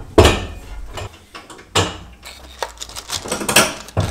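Metal tools and parts clanking and clinking during engine-installation work. A sharp clank comes just after the start, then two more about a second and a half apart, with smaller clicks between.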